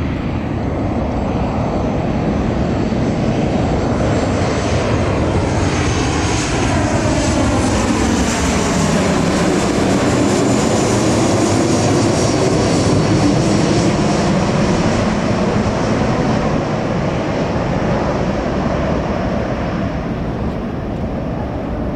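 Jet engines of a Lion Air airliner on landing approach passing low overhead: the sound swells to its loudest about halfway through, with a whine that falls in pitch as the plane goes by, then slowly fades.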